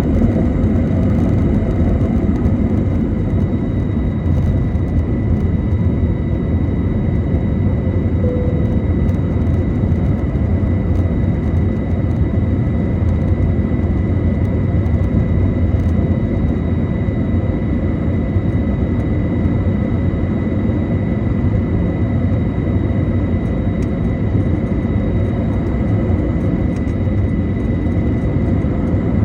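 Airbus A321neo's jet engines running at takeoff thrust: a steady, loud rumble with a constant high whine over it.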